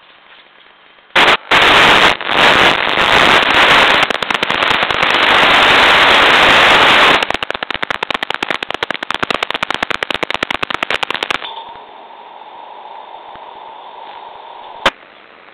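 Loud static hiss from a wireless security camera's radio link breaking up, starting about a second in, turning into rapid crackling from about 7 s. It drops to a quieter steady hiss at about 11 s, with one sharp click near the end.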